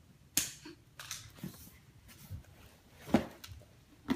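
Plastic tag fasteners being worked out of a blanket's retail packaging: a few sharp clicks and snaps with light rustling, the loudest snap about three seconds in.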